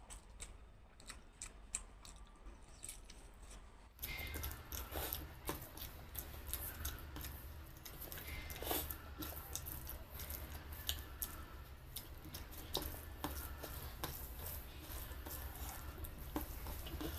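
Fingers mixing rice with egg curry gravy on a steel plate: soft wet mixing sounds with many small clicks. A steady background hiss gets louder about four seconds in.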